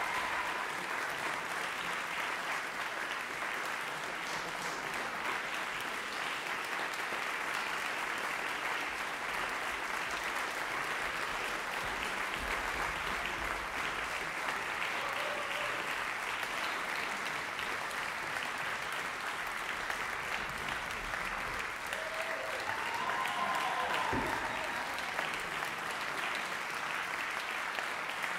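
Large audience applauding steadily, a dense, even clapping that keeps going without a break.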